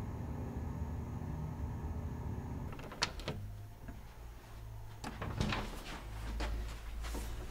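Low steady room hum, then a sharp door-latch click about three seconds in, followed by a few softer knocks and bumps as a door is handled.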